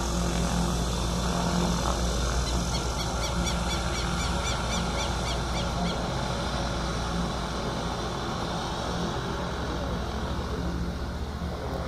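Cessna 208 Caravan's PT6A turboprop engine running steadily as the aircraft taxis, its hum growing a little fainter as it moves away. A quick run of short high chirps comes a few seconds in.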